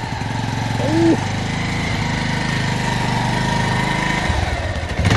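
Bajaj Pulsar 220 motorcycle's single-cylinder engine running steadily as the bike moves off, its note shifting a little after about four seconds.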